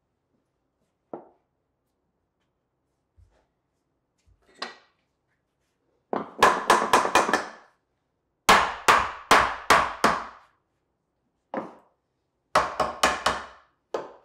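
Mallet rapping on a wooden frame, knocking its joints together: three quick runs of about five blows each, with a few single knocks between.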